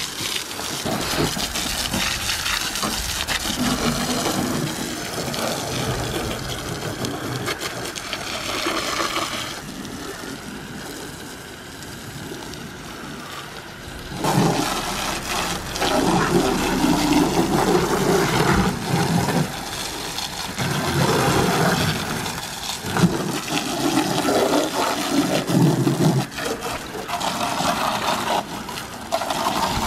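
Garden hose spray from a hand-held nozzle splashing on a Chevrolet Camaro's wheel and body panels, a steady gushing spatter that shifts as the jet moves over different surfaces. It eases off for a few seconds in the middle, then comes back louder and splashier.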